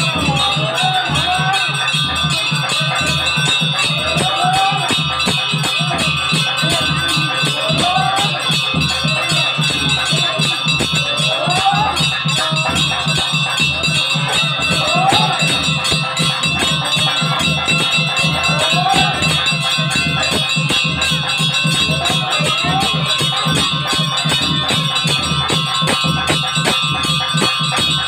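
Temple bells ringing continuously over a fast, even drumbeat during an aarti, with a short rising tone recurring every few seconds.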